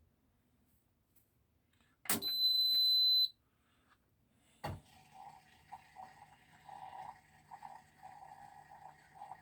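Indesit Innex washing machine's control panel giving one steady high beep, about a second long, as the spin programme is started. A couple of seconds later a sharp click, then a low steady hum and uneven mechanical noise from the machine start up.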